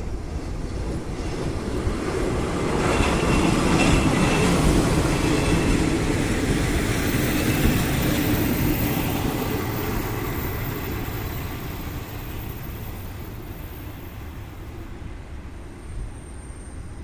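ČD class 814 RegioNova diesel railcar passing close by: its diesel engine running and wheels rolling on the rails, loudest a few seconds in, then fading as it pulls away.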